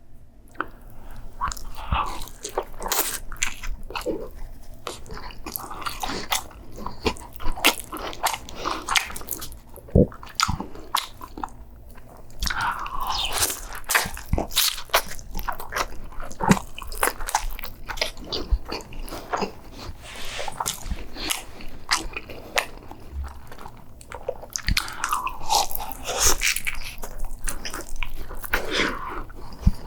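A person biting and chewing food close to the microphone, with crunching bites and many sharp mouth clicks.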